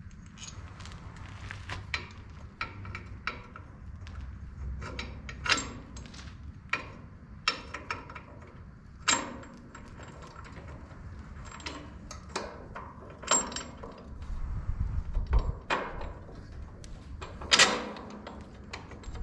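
Irregular metallic clinks and knocks of hand tools and steel hardware (washers, nuts, bolts) being handled and fitted during reassembly of windrower parts. The loudest knock comes near the end.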